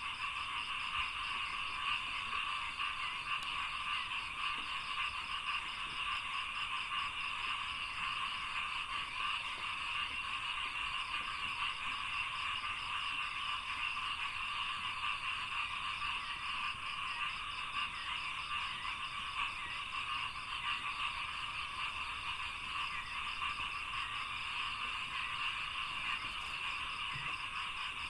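Dense chorus of frogs in a rice field, many calling at once in a steady, unbroken wall of croaking, with a faster pulsing trill running above it.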